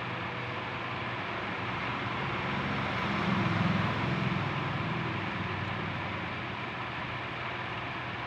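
Steady background noise with a low engine hum that grows louder about three seconds in and then eases off, as from a motor vehicle.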